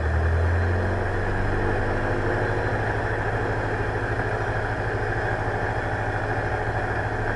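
Diamond DA40's piston engine and propeller running at low power, heard inside the cockpit while the plane lines up for takeoff. The engine swells briefly at the start, then settles to a steady, even run.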